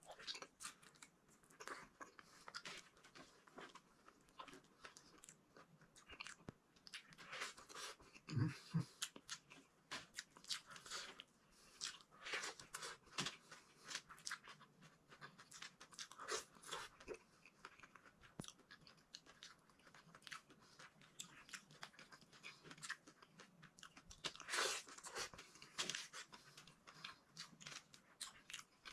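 A person chewing and biting food close to the microphone, mukbang-style: okra and eggplant. The chewing comes as many short, irregular crunchy clicks.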